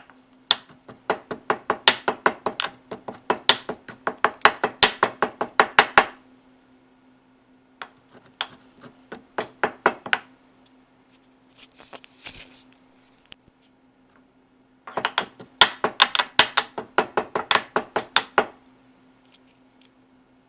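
A kitchen utensil knocking rapidly against a dish or cutting board as food is prepared, in three runs of quick strikes at about five or six a second, with pauses between them.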